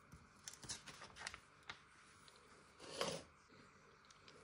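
Very quiet desk handling: a few faint clicks and rubs in the first second and a half, and a soft brush about three seconds in, as a hand moves a pencil and phone over the paper.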